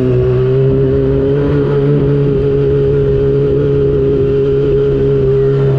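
Yamaha R6's 600cc inline-four engine running loud at a steady engine speed, its note holding one pitch throughout.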